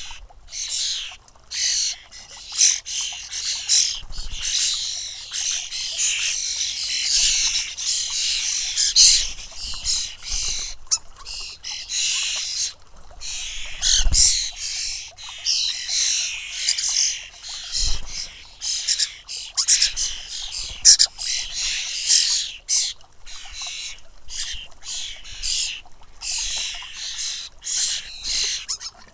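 European starling fledglings calling constantly, a dense, unbroken chatter of high begging calls from several birds at once. A few soft low thumps come through underneath.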